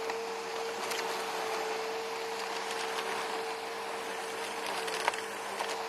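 Bissell Rewind Premier Pet bagless upright vacuum running with a steady motor whine and rush of air while it sucks up grass. Scattered clicks and crackles come from debris being drawn in, the sharpest about five seconds in.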